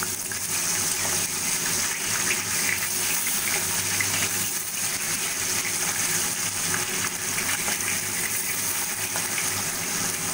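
Pieces of rui fish frying in hot oil in a kadai, a steady sizzle with small crackles of spattering oil.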